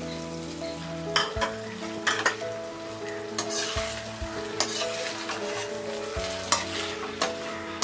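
Flat metal spatula stirring boiled potato cubes into frying onions, tomatoes, peas and capsicum in a kadhai, knocking and scraping against the pan about a dozen times over a steady sizzle of frying.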